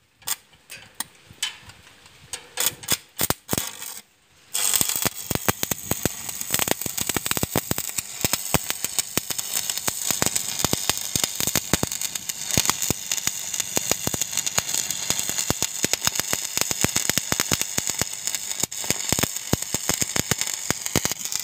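Stick (arc) welding with a 6013 electrode: after a few sharp clicks, the arc strikes about four and a half seconds in and runs with a steady crackling and popping.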